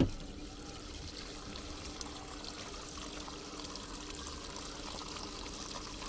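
Compact washing machine filling with water just after being started on a wash program: a click at the start, then a steady rush of water into the tub with a faint steady hum underneath.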